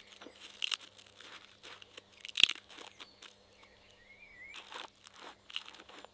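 Cartoon sound effects: scattered soft crunches and clicks, with one sharp snap about two and a half seconds in and a short wavering chirp around four seconds.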